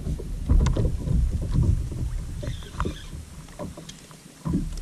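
Wind buffeting the microphone and water lapping against a fishing kayak's hull, with scattered small knocks and clicks. The buffeting is strongest in the first couple of seconds and dies down briefly near the end.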